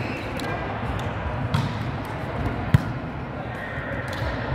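Volleyball thuds: two sharp hits a little over a second apart, the second the louder, over a steady background of voices.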